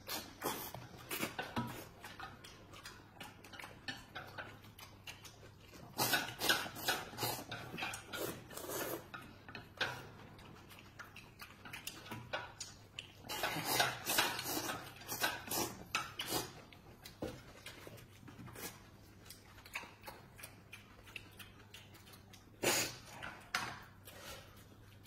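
People slurping and chewing noodles eaten with chopsticks, in quick wet bursts that come in two long runs and a short one near the end.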